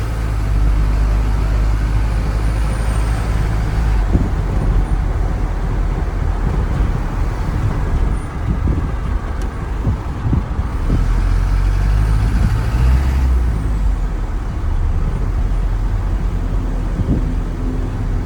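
Steady road noise and low engine rumble inside a moving car, with the rush of wind.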